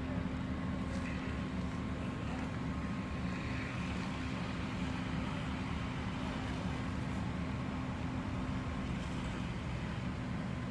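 Fire apparatus engine running steadily: an even, low drone with a constant hum.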